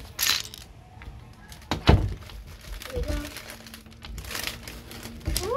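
Lego pieces and their plastic bags being handled: crinkling bursts, small plastic clicks, and one heavier knock about two seconds in.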